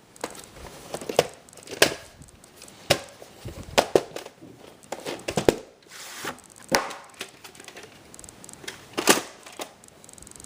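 A VHS tape case being handled and opened: a string of sharp clicks and knocks at irregular intervals, with light rustling between them.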